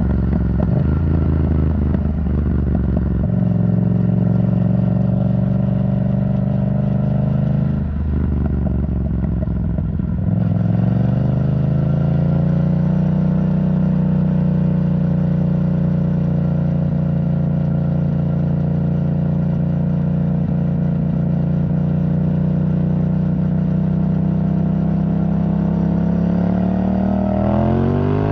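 Yamaha MT-07's parallel-twin engine through an Arrow Thunder titanium exhaust, ridden at steady revs. The engine note drops briefly about eight seconds in, settles into a long steady pull, then climbs sharply in pitch near the end as the bike accelerates.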